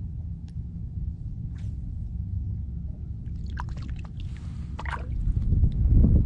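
Shallow water sloshing and dripping around a wader's legs over a steady low rumble, with a cluster of small splashes and drips about three to five seconds in. The low rumble swells near the end.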